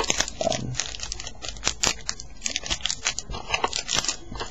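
Clear plastic wrapping crinkling and crackling as it is handled, a rapid, irregular run of small crackles.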